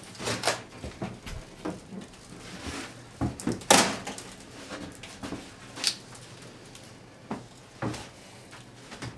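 A bathtub knocking and scraping as it is manoeuvred into place between wooden wall studs: scattered bumps and knocks, the loudest a sharp knock a little under four seconds in.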